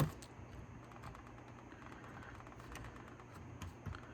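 Small scattered clicks and scrapes of needle-nose pliers working at a C-ring retaining clip on a door lock cylinder, with a sharper click at the start and a couple more near the end, over a faint steady low hum.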